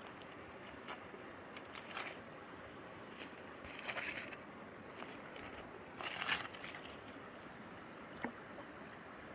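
Aluminium foil crinkling in three short bursts as a hand picks at a foil-baked trout, with a small sharp click near the end, over a steady low hiss.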